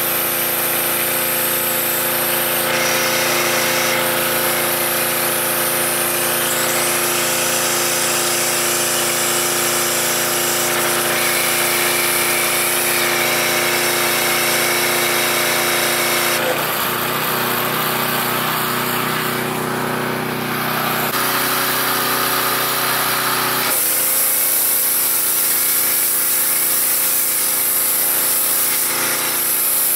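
Small gas-engine pressure washer running steadily under load while a foam cannon sprays soap, the engine's drone mixed with the hiss of the spray. The sound shifts twice, around the middle and again later, as the cannon's spray fan and flow are turned through their settings.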